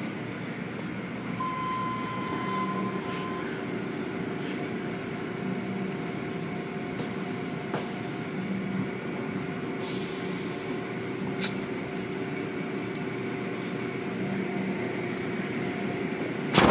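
Automatic tunnel car wash machinery running: a steady hum with a low pulse about every three seconds as the cloth brushes and sprayers work over a vehicle. A couple of sharp knocks about eleven seconds in.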